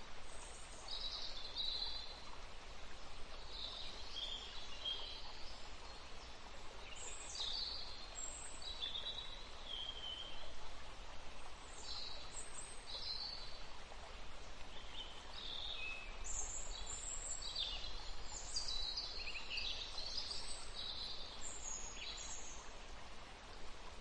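Small birds chirping and singing in many short, high phrases over a steady background hiss of outdoor ambience.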